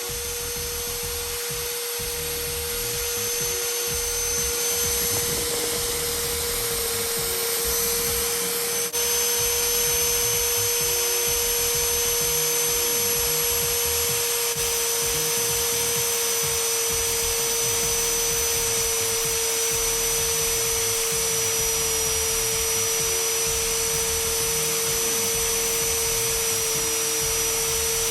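Bossman BCM-40 magnetic drill's electric motor running steadily with a constant whine. About nine seconds in there is a small click and it gets slightly louder.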